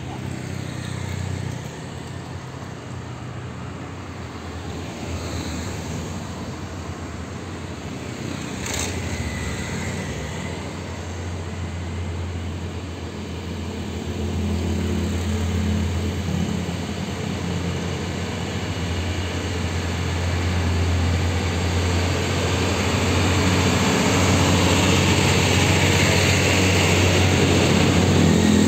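Heavy diesel trucks, a Hino Ranger tanker followed by an Isuzu tank-container truck, approaching along the road, their low engine drone growing louder toward the end, with motorcycles passing amid the traffic. A short sharp sound about nine seconds in.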